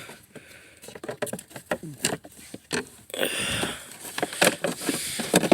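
Irregular light clicks and knocks, with a brief rustling scrape about three seconds in: handling noise of hands working around the dashboard and the camera.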